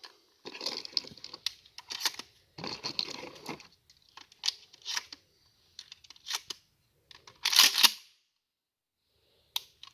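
Loading a Mossberg 500 pump-action shotgun to five rounds plus one: a run of clicks, scrapes and rattles as shells are handled and pushed into the tube magazine, with one louder clack about seven and a half seconds in.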